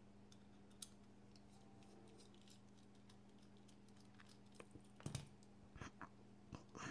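Faint clicks and light taps of small folding-knife parts being handled and fitted, scattered and growing more frequent near the end, over a quiet steady hum.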